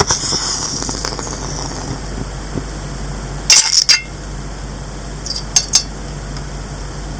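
Caesium metal reacting violently with water in a stainless steel dish: a sharp pop right at the start, then about a second of sizzling hiss, and a second harsh burst of popping about three and a half seconds in. Near the end two light metallic clicks as the tongs tap the steel dish.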